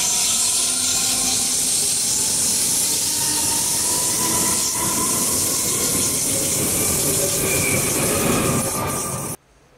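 Red S-Bahn Stuttgart electric multiple unit running past close along the platform: rail and running noise with a strong hiss and a faint electric whine. The sound cuts off suddenly near the end.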